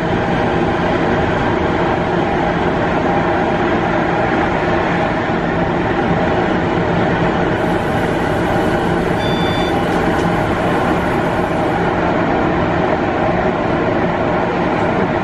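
Stadler Tango electric tram running steadily downhill through a concrete tunnel, a continuous rolling rumble of wheels on rail. A short high tone sounds a little after halfway.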